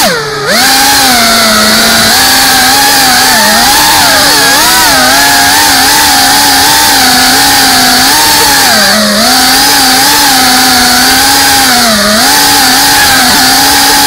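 FPV racing drone's motors and propellers buzzing loudly, the pitch dipping and rising again and again as the throttle changes. Just after the start the buzz drops briefly in pitch and loudness, then comes straight back.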